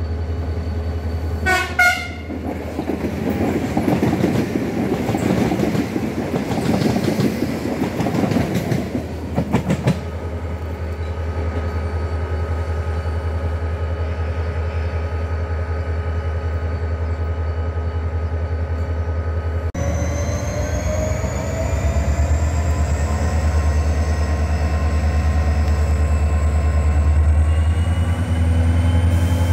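Train sounds over the steady low hum of a diesel locomotive's engine. A short horn sounds about two seconds in, and a passing train makes rushing rail noise for several seconds. Later the engine's note rises slowly as the locomotive throttles up.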